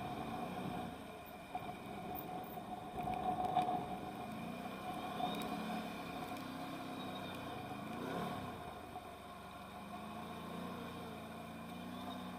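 Can-Am Outlander 1000R XMR ATV's V-twin engine running under throttle, its pitch rising and falling repeatedly as it is revved up and eased off, loudest about three and a half seconds in.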